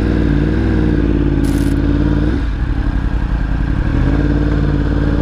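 2015 Yamaha R1's inline-four engine running at low riding speed through a Yoshimura exhaust, its revs easing off about two seconds in and picking up again near the end. A brief hiss about one and a half seconds in.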